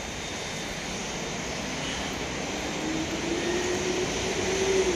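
Steady outdoor city noise with a low engine hum that rises slowly in pitch and grows louder over the last couple of seconds, like a vehicle approaching.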